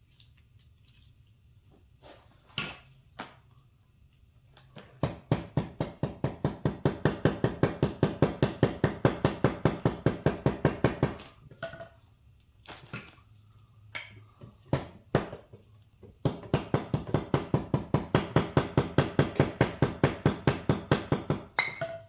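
Hammer striking metal in rapid, even taps, about six blows a second, in two long runs with a few single knocks before and between them: knocking a worn bushing out of an ATV A-arm.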